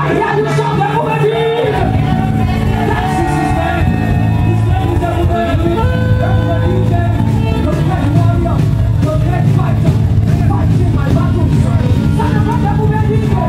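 Live band music led by a saxophone playing a melody, with keyboard, bass and drums; the low end of the band fills in about two seconds in.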